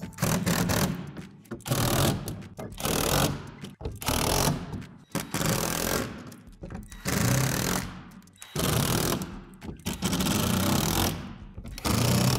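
Cordless impact driver hammering screws into the shed's plastic wall panels, in repeated short runs of about a second, one screw after another, with brief pauses between them.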